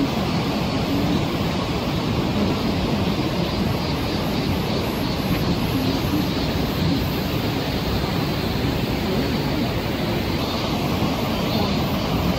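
Steady rushing noise of the Jinsha River's rapids in flood, churning through a narrow rock gorge.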